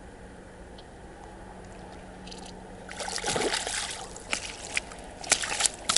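A hooked bream splashing and sloshing at the water's surface as it is brought in to be landed. The splashing starts about halfway through, and sharp clicks and knocks follow near the end.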